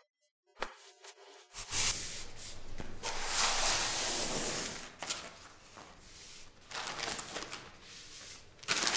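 A moment of near silence, then a few seconds of rustling and scraping as a self-adhesive vinyl plank is handled, laid and pressed onto the floor, followed by softer rustles and a couple of light taps.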